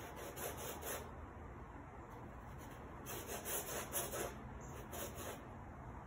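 Paintbrush scrubbing across canvas in quick back-and-forth strokes, a scratchy rubbing. There is one run of strokes in the first second and a longer run from about three to five seconds in.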